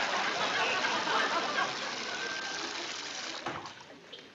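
Water running from a sink faucet, dying away about three and a half seconds in.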